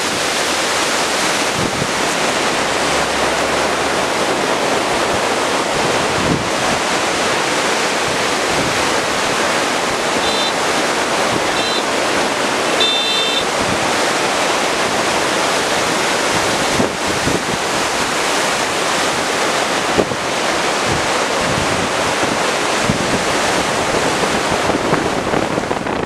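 Steady, loud rush of turbulent flood water below a dam, mixed with wind buffeting the microphone. A few short high chirps come about ten to thirteen seconds in.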